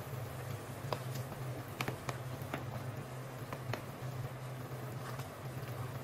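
Chicken adobo sauce simmering in a nonstick pan, with soft bubbling and a few sharp little pops or clicks over a steady low hum. In the last couple of seconds a wooden spatula stirs the chicken through the sauce.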